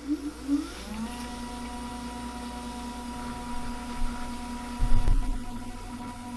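ZWO Seestar S50 smart telescope's motor whirring steadily as it swings the arm up out of its folded position, after a few short rising chirps as it starts. A couple of low thumps come near the end.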